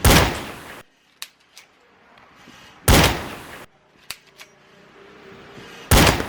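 Pistol firing three single shots about three seconds apart, each a sharp crack with a short fading echo.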